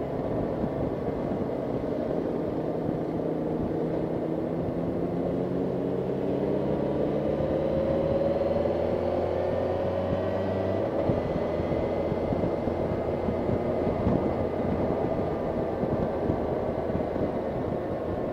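Motorcycle engine running at road speed under wind noise, its pitch rising slowly through the first half as the bike gathers speed, then holding steady.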